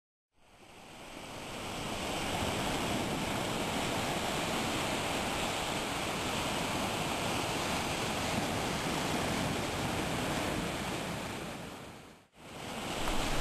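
Ocean surf breaking and washing onto a beach: a steady rush that fades in at the start and fades out near the end.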